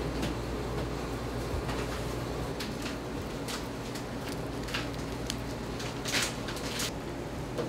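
Bakery food-prep handling sounds: a string of short, sharp swishes, the loudest about six seconds in, over a steady low hum of kitchen equipment.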